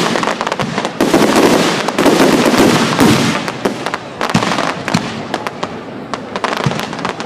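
Fireworks display: aerial shells bursting in quick succession, with a few heavy bursts in the first seconds followed by a long run of rapid crackling.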